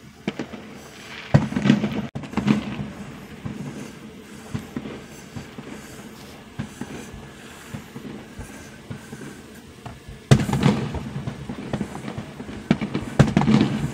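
Aerial firework shells bursting in a series of booms with crackle: a cluster in the first few seconds, a quieter lull, then loud bursts again from about ten seconds in.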